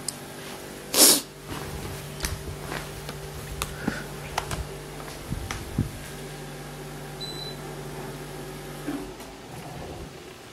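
Room air conditioner humming steadily, giving a short high beep about seven seconds in as its remote's buttons are pressed; the hum stops shortly after. A loud rustle about a second in, with scattered light handling clicks.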